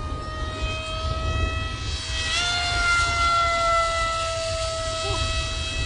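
Multiplex Twin Jet RC model plane flying past, its twin electric motors and pusher propellers making a steady high whine that steps up in pitch a little over two seconds in, then slowly falls as it passes close by.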